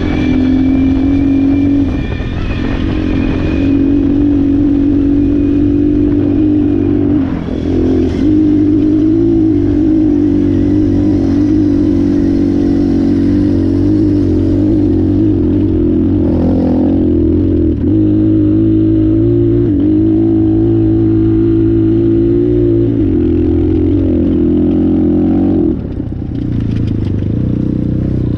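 The single-cylinder four-stroke engine of a 2019 Apollo 250RX dirt bike running hard under way. Its note holds steady for stretches and changes pitch in steps, with a few short dips as the throttle is eased, the last near the end.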